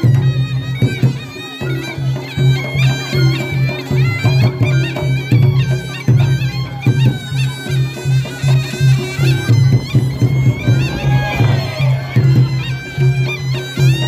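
Reog Ponorogo accompaniment music: a slompret, a nasal double-reed shawm, plays a wavering melody over a steady pulsing beat of drums and gongs.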